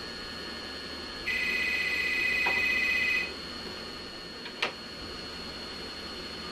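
Electronic desk telephone ringer trilling once for about two seconds, followed a second or so later by a single sharp click, over steady tape hiss.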